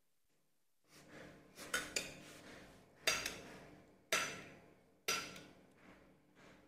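Metal ladle clinking against a china bowl while liquid pig's blood is scooped and poured, starting about a second in: about five sharp knocks roughly a second apart, each ringing briefly.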